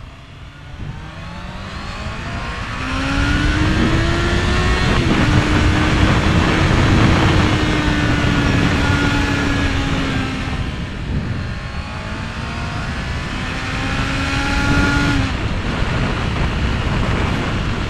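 Honda CBR650R's inline-four engine accelerating under way, its note climbing and dropping at gear changes about five seconds in and again near the end, with a brief lull in between. Heavy wind rush runs under it throughout.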